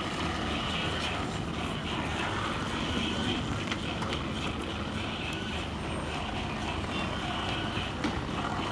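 Steady city background noise outdoors, mainly a low, even hum of distant traffic, with no distinct event standing out.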